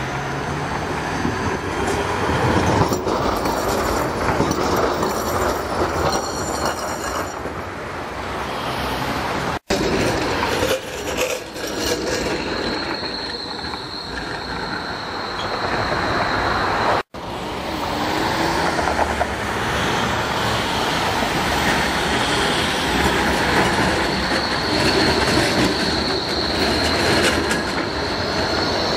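Electric street trams passing close on street track: wheels rumbling and clattering over the rails, with street traffic in the background. A high, steady squeal comes in about halfway through and again over the last several seconds, and the sound breaks off and restarts twice.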